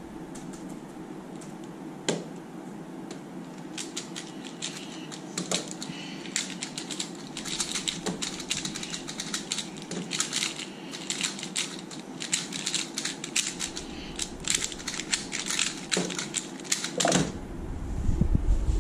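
3x3 speed cubes, one a Mini Valk3M, being turned fast in a race: a rapid clatter of plastic clicks starting about four seconds in. Near the end there is a single knock, then a low rumble of the camera being handled.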